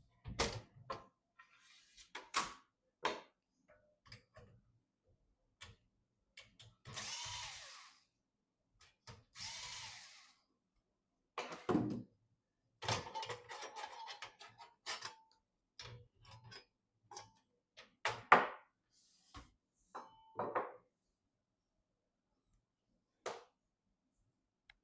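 Computer parts being handled and fitted: scattered sharp clicks and knocks, with two noisy rasps about a second long, around seven and nine-and-a-half seconds in.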